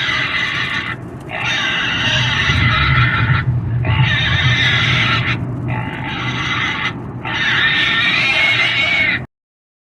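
A pig squealing and screaming in long, shrill, wavering cries, about five in a row with only short breaks between them; the sound cuts off suddenly near the end.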